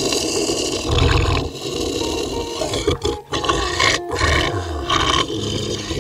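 A dog, presented as a bull mastiff, growling in several rough bursts about a second apart.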